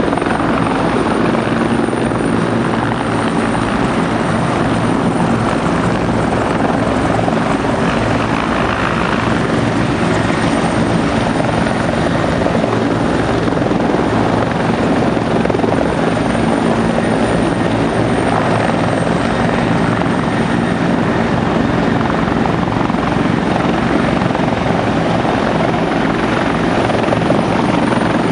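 Helicopters flying low and hovering: a loud, steady noise of rotors and turbine engines with a constant low hum.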